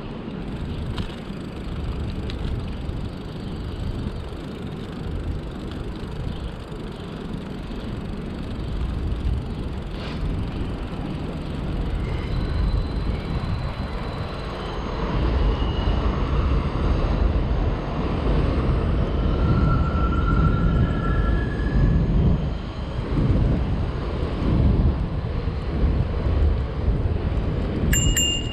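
Wind buffeting the microphone of a camera on a moving bicycle: an uneven low rumble that grows louder about halfway through, with a few short high tones in the second half.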